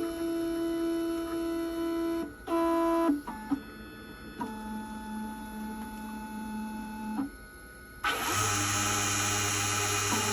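Keyline Laser 994 key-cutting machine at work: its positioning motors whine in steady tones that change pitch and stop and start as the key is moved into place, then about eight seconds in the cutter motor starts and runs with a steady hum and hiss.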